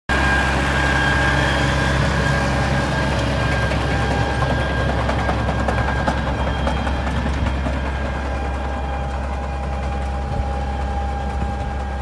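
Tractor diesel engine running steadily while pulling a potato digger through the soil, with a light clatter from the digger's working parts.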